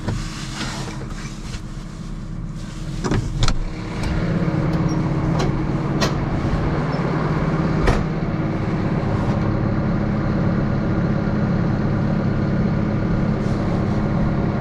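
Diesel farm tractor in the cold: a few clicks and knocks, then from about four seconds in a steady mechanical drone that holds to the end.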